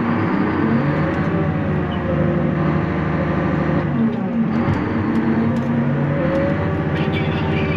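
Loader's engine running hard under load as it tries to climb out of a snowy ditch with the differential lock engaged; its pitch sags briefly near the start and again about four seconds in, then climbs back.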